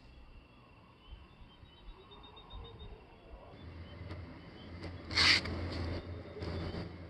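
Night insects chirping faintly in short pulses. About three and a half seconds in, a low steady hum comes in, and a short, loud, hissing-rustling burst stands out about five seconds in.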